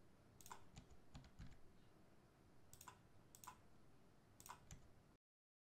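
Faint computer keyboard typing and mouse clicks: a scattering of about eight separate clicks and taps while times are entered in a web form. The sound cuts off to dead silence about five seconds in.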